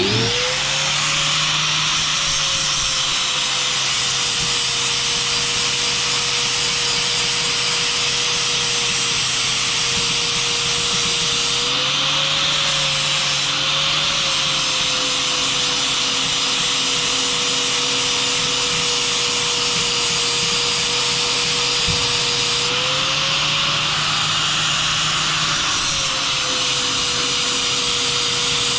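Electric angle grinder spinning up, then grinding the paint off a steel gas cylinder with an abrasive disc: a steady motor whine over a harsh scraping hiss. The motor pitch rises briefly twice, around twelve seconds in and again near twenty-three seconds, as the disc comes off load.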